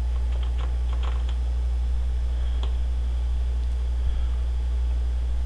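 Computer keyboard keystrokes: a quick run of clicks in the first second or so and a single one a little later. They sit over a steady low electrical hum, which is the loudest thing throughout.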